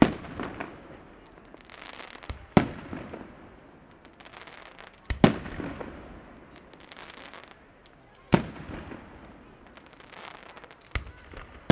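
Aerial firework shells bursting in a steady sequence, five sharp loud reports about two and a half to three seconds apart, each followed by an echoing tail that dies away.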